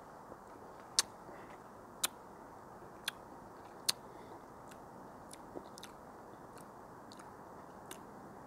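Mouth smacks of someone tasting beer: four sharp tongue-and-lip clicks about a second apart, then a few fainter ones, over a low steady hiss.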